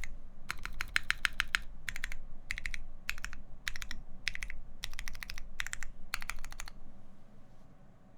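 Typing on a Salvation mechanical keyboard with lubed Pewter switches, a half FR-4 plate and Hammerworks CRP keycaps: quick runs of keystrokes with short gaps between them, stopping a little over two-thirds of the way through.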